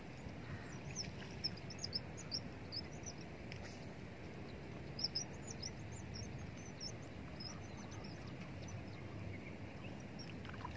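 Small birds chirping in quick, high, repeated notes, in clusters during the first few seconds and again about five seconds in, over a steady low outdoor background rumble.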